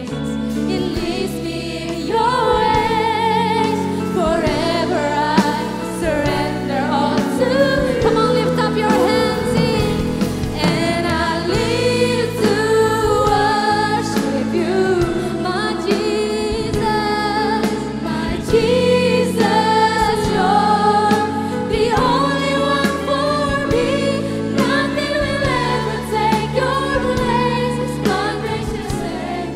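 Live contemporary worship song: female vocalists sing a slow, sustained melody over a band with bass and drums.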